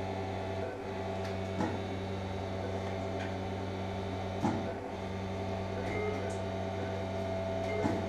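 Steady electrical hum of operating-room equipment, with a couple of faint short knocks.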